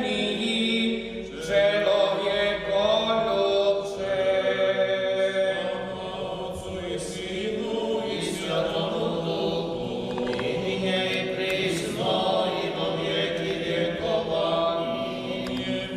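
Orthodox memorial chant sung by several men's voices together, in slow notes that are held and then shift in pitch.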